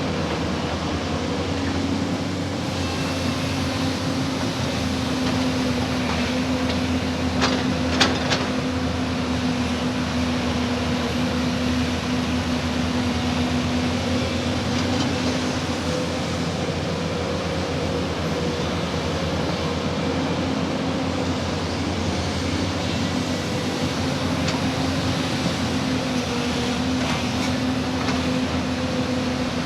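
Excavator's diesel engine running steadily at working speed, with a few sharp metallic clanks about eight seconds in.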